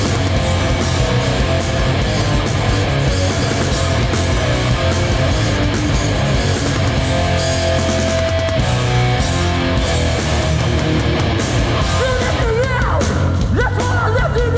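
Hardcore punk band playing live: loud distorted guitars, bass and drums, with a shouted voice coming in over them near the end.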